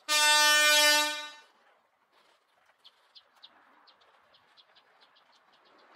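A horn sounds once, a loud steady single note for about a second and a half that then fades away. Afterwards there are only faint quick ticks.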